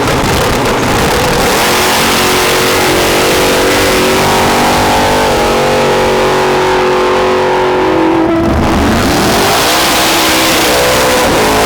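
Drag-race cars accelerating hard at full throttle down the strip, engine pitch climbing in steps. The engine note drops sharply about eight seconds in, then climbs again.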